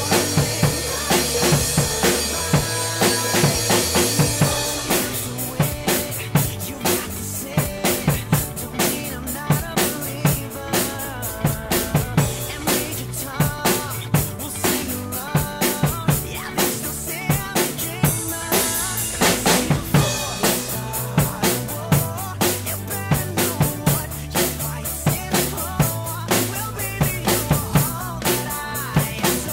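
Acoustic drum kit played along to a rock backing track: kick, snare and cymbals in a driving beat. A bright crash-cymbal wash fills the first few seconds, then the playing settles into a tighter groove.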